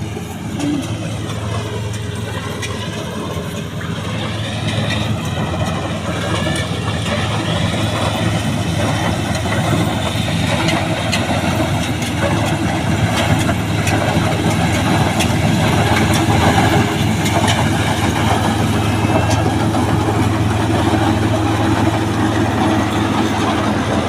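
Diesel engine of a combine harvester running steadily, growing louder over the first dozen seconds or so.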